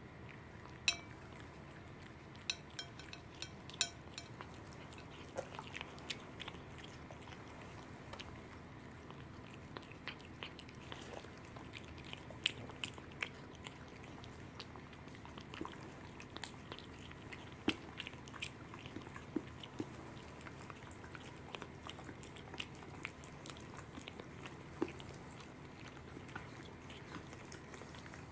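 A cat chewing and licking raw salmon off a plate: irregular small wet clicks and smacks of its mouth, loudest about a second in and again around the middle.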